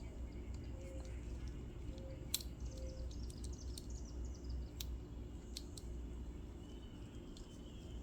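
A few sharp, isolated clicks from small engine parts being handled during a carburettor swap, over a low steady rumble, with faint bird chirps in the background.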